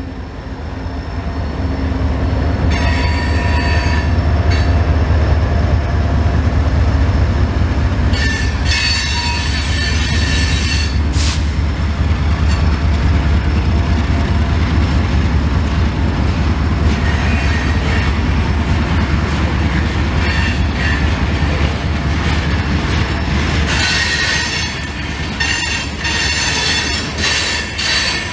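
Freight train passing at close range: the heavy rumble of its diesel locomotives, then grain cars rolling by, with high-pitched wheel screeching and clatter coming and going in spells. The low rumble eases near the end as the locomotives pass on.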